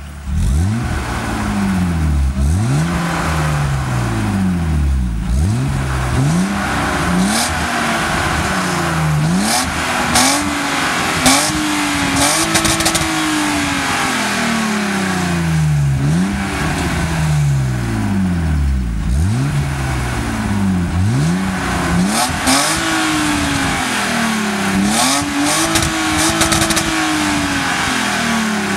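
BMW E36 325i's 2.5-litre straight-six revved repeatedly while standing still, the engine note climbing and falling with each blip, a few times held high before dropping back. It breathes through the stock exhaust with catalytic converters and an aftermarket replacement rear muffler.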